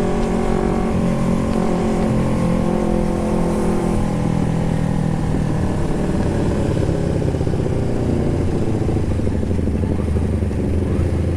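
Carbureted Kawasaki Ninja 250 parallel-twin engine running through an aftermarket Termignoni-style megaphone exhaust while the bike is ridden. The note is steady at first and drops to a lower pitch about halfway through.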